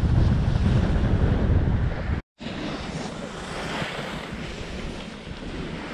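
Wind buffeting the microphone of a camera skiing downhill at speed. It cuts out for a moment about two seconds in, then goes on as a quieter rush of wind.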